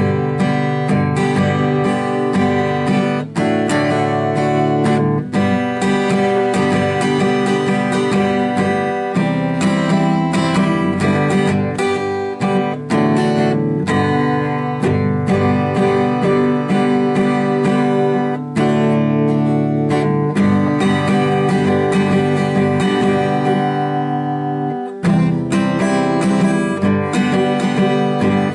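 Acoustic guitar strummed in chords that change every second or two; the playing is pretty rough.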